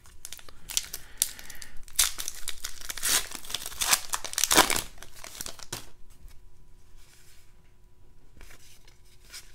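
Foil wrapper of a Goodwin Champions trading-card pack being torn open and crinkled in the hands, loudest about halfway through. After about six seconds it drops to a soft rustle as the cards are handled.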